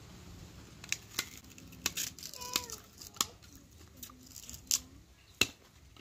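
Sugarcane rind cracking and tearing as pieces are peeled and bitten into: about nine sharp, irregular snaps, the loudest a little past five seconds in.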